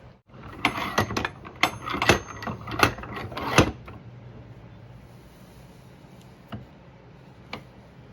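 Quick run of hard clicks and knocks for about three seconds as small parts and tools are handled at a workbench, then two single ticks near the end.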